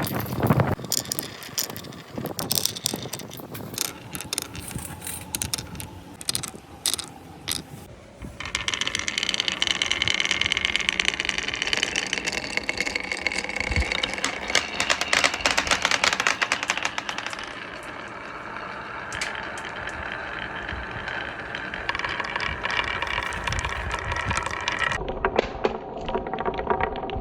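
Marbles rolling and clacking down a marble run track. For about the first eight seconds there are separate clicks and knocks, then a dense, continuous rattle of balls rolling and colliding that keeps going to the end, changing character abruptly twice.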